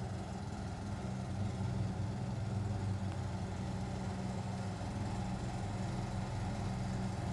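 Vehicle engine running steadily at low speed, a continuous low hum.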